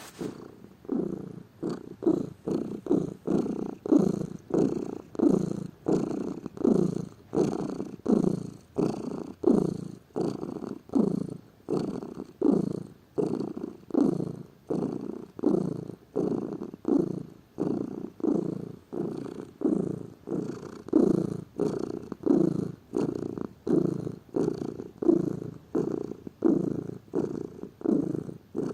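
Domestic cat purring close up, steady and rhythmic, each pulse swelling and fading in an even cycle of about one and a half to two a second.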